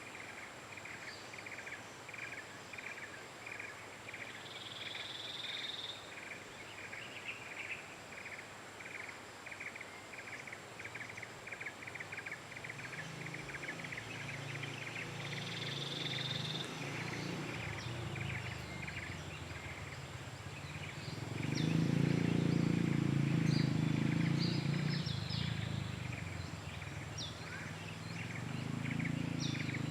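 Outdoor ambience with an animal, bird or insect, chirping in a steady series of short notes at about two to three a second, with a couple of brief higher calls. A low rumble swells in from about halfway and is loudest about two-thirds of the way through.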